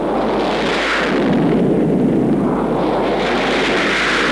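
Gloster-Whittle E.28/39 jet aircraft with its Whittle turbojet taking off and climbing overhead: a loud, steady rushing jet roar that swells in at the start.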